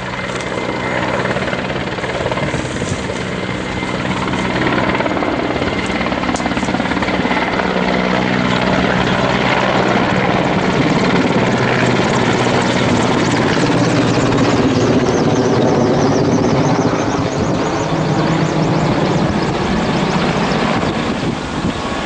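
Firefighting helicopter flying overhead, its rotor and engine running with a steady low hum that grows louder about four seconds in.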